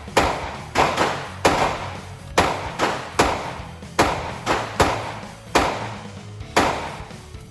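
A firearm fired shot after shot at a steady slow pace, about nine sharp shots, each ringing out briefly in the range, over background music.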